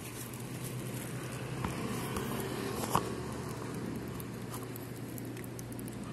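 A cat eating from a plastic bowl close up, with small chewing and crunching sounds, over a steady low hum of distant traffic that swells a little near the middle. A single sharp click about three seconds in.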